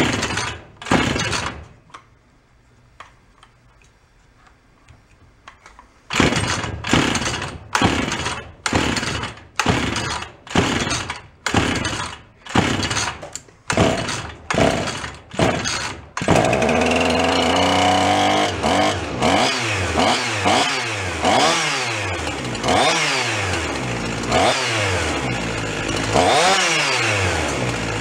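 Husqvarna two-stroke chainsaw being pull-started: a few cord pulls, a pause, then about a dozen rapid pulls about one a second. The engine catches about 16 seconds in and keeps running, revved up and down repeatedly.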